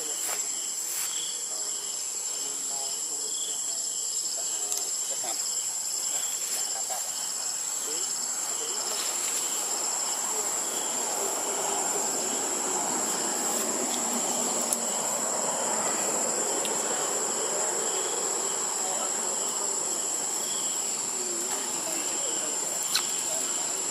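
Insects droning steadily in a high, continuous tone, with a second insect call pulsing rhythmically beneath it. A soft rushing background noise swells through the middle and fades again.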